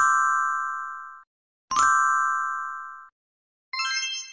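Subscribe-button animation sound effects: two identical dings about a second and a half apart, each ringing for about a second and then cutting off abruptly, followed near the end by a higher, brighter bell-like chime that fades out.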